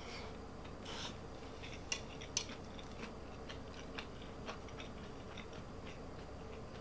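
A person eating: faint chewing and mouth sounds with scattered small clicks. The sharpest click comes about two seconds in, with another about half a second later.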